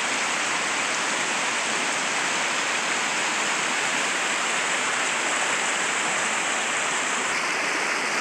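Mountain creek rushing and splashing over rocks, a steady roar of water, running high after a month of heavy rain.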